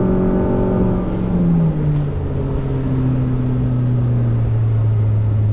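A boat motor running under way. Its pitch steps down a little under two seconds in and then slides slowly lower.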